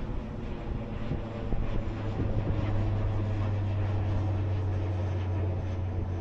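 Airplane flying overhead, its engines giving a steady low drone that grows a little louder about two seconds in.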